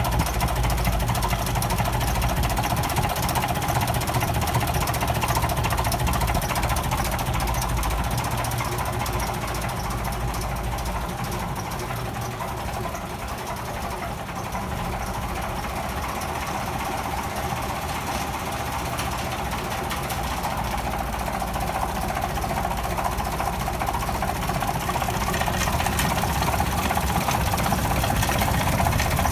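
Diamond T 980's Hercules six-cylinder diesel engine idling steadily.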